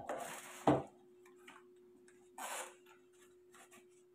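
Packaging and a multimeter's hard zippered case being handled: a short plastic rustle at the start, a sharp knock just under a second in, scattered small clicks and another brief rustle halfway through. A faint steady hum runs underneath.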